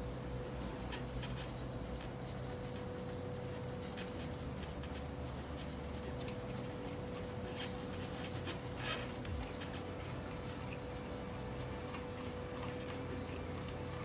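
Small scratching and rubbing sounds as hands and a T-handle tyre reamer work over a car tyre's tread at a puncture, with many light clicks, over a steady low hum.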